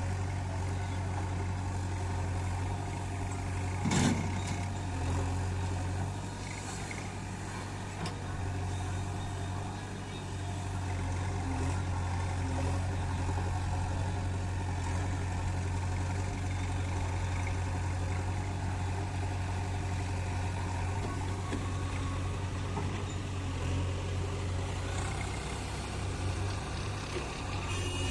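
Heavy diesel machinery engine running steadily with a low hum. A single brief sharp knock comes about four seconds in.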